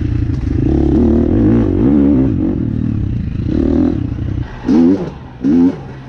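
KTM enduro dirt bike engine under varying throttle while riding a rough dirt trail, the revs rising and falling. About four and a half seconds in the engine drops back, then two short, sharp throttle blips follow.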